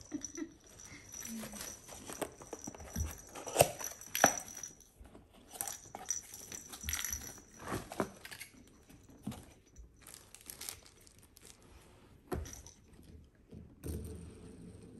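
Gifts and packaging being handled: rustling and crinkling with scattered sharp clicks and knocks, the two loudest about three and a half and four seconds in.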